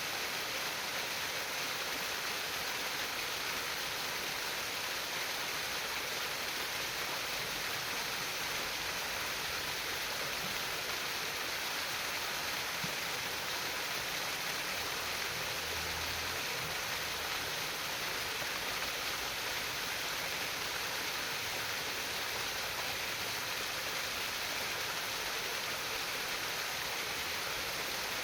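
Water trickling and babbling in a small stream, a steady even rush with no breaks.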